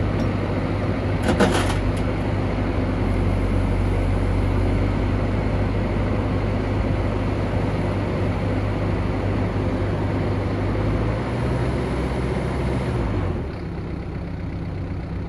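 Caterpillar 314D LCR hydraulic excavator's diesel engine running steadily while the boom is raised, with a short clank about a second and a half in. About two seconds before the end the engine settles to a lower, quieter note.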